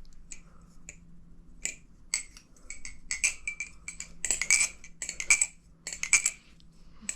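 Metal balisong trainer clicking and clacking in quick irregular clusters as its handles and blade swing around the pivots, the pivots freshly oiled.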